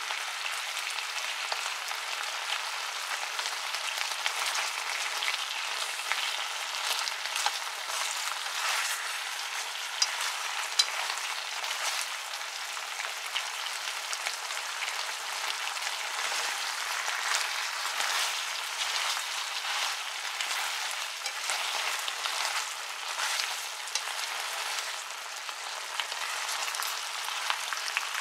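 Chicken wings sizzling in a frying pan in a thin glaze of soy sauce, sake, sugar and honey: a steady crackling sizzle with two sharper pops about ten seconds in.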